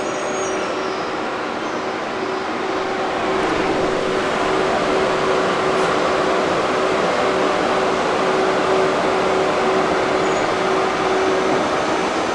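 Electric train moving slowly at a station platform: a steady whirring with a constant hum, getting louder about three seconds in.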